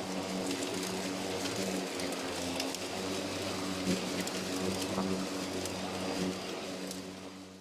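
Worx Nitro WG761E battery-powered mower running under load while cutting grass: a steady motor and blade hum with a rushing noise over it, fading near the end.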